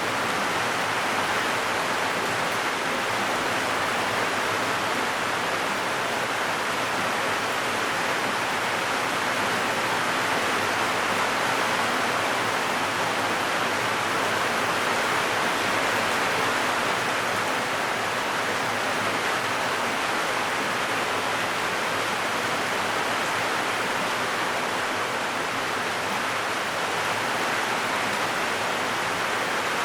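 Heavy rain drumming steadily on a zinc (corrugated metal) roof, a dense even hiss with no single drops standing out.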